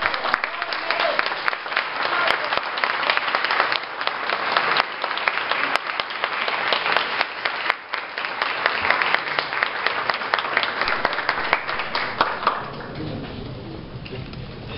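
Audience applauding in a hall, a dense patter of many hands clapping that fades out about twelve seconds in, leaving a quieter murmur.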